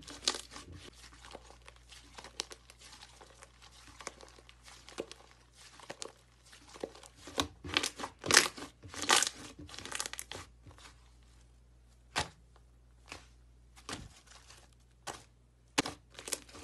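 Thick slime being kneaded and pressed by hand, giving irregular sticky clicks, pops and tearing sounds. A busier run of louder pops comes about eight to ten seconds in, then scattered single pops.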